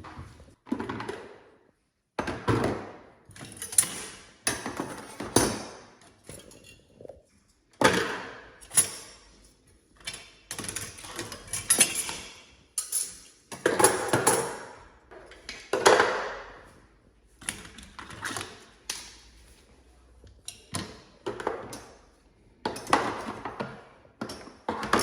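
Kitchen utensils and dishes clattering and clinking as they are handled and set down in drawers, in irregular bursts with short pauses between.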